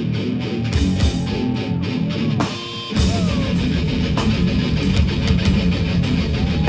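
Hardcore band playing live: heavy distorted electric guitars, bass and drums. The low end drops out briefly about two and a half seconds in, then the full band crashes back in.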